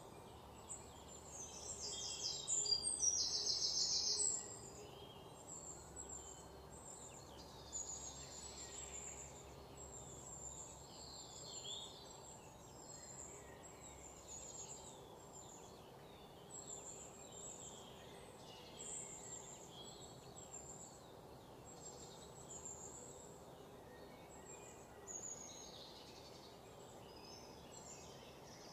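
Birds chirping, with many short high calls repeating throughout. A louder buzzy trill runs from about two to four seconds in.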